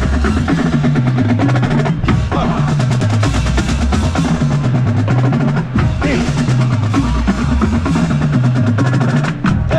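Marching band playing a fast march, with snare and bass drums driving under the horns and a low line stepping up and down.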